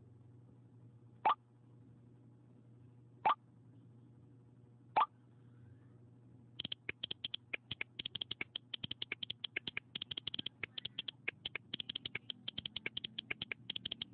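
Three short iPhone iMessage incoming-message sounds about two seconds apart, then from about halfway a rapid, continuous run of iPhone keyboard clicks as a long message is typed.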